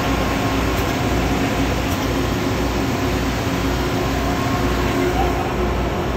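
Air-driven high-pressure hydraulic pump unit running while it pressurises the bearing-nut tightening jacks, with a low throb repeating about every two-thirds of a second over steady machinery noise.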